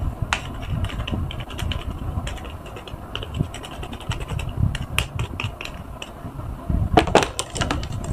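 Yellow car sponges squeezed by hand in a tub of thick detergent foam: wet squelching with many small crackles and pops of bursting bubbles, the crackling densest about seven seconds in.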